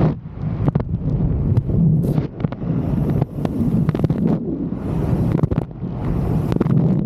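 Airflow buffeting a helmet-mounted camera's microphone in fast speedflying flight: a loud, gusty low rumble broken by frequent sharp pops.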